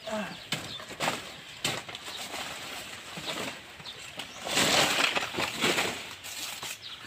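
Dry, dead banana leaves and leaf sheaths crackling and tearing as they are cut with a machete and stripped from the trunk. A few sharp snaps come in the first couple of seconds, then a louder stretch of crackling rustle just past the middle.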